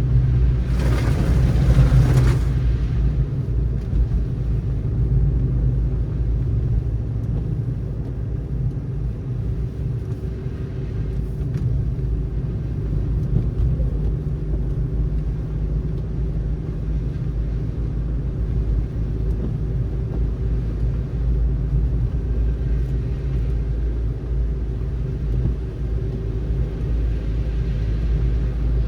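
Steady low rumble of a car driving on a snowy road, tyre and engine drone with a faint steady hum. About a second in comes a brief loud rushing hiss that fades after a second or two.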